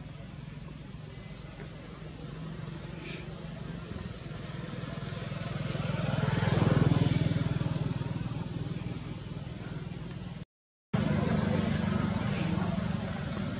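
A road vehicle passing, its engine and tyre noise swelling to a peak about seven seconds in and then fading. Near the end the sound cuts out for a moment, then a steady low engine hum carries on.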